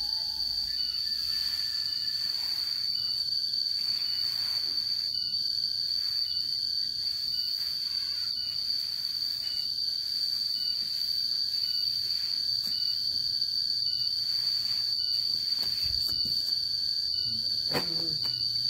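Insect trilling continuously on one steady high note, with a fainter short chirp repeating about once a second.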